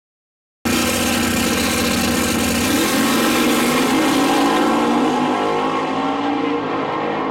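A drag-racing car's engine accelerating hard down the strip. It starts abruptly about half a second in, rises in pitch as it revs, and grows duller near the end as the car pulls away.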